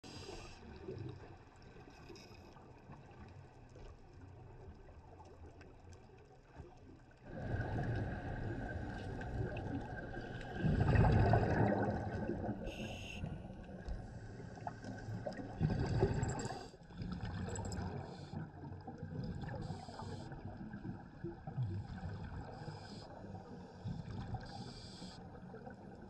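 Underwater ambience: muffled, rushing water noise with louder surges, changing abruptly about seven seconds in and again near seventeen seconds.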